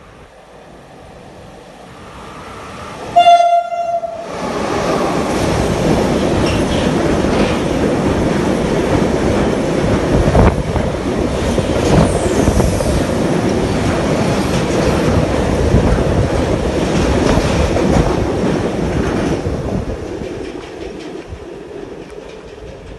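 A train gives one short horn blast as it approaches. It then runs past for about fifteen seconds, a loud rush with scattered knocks from the wheels, and fades away.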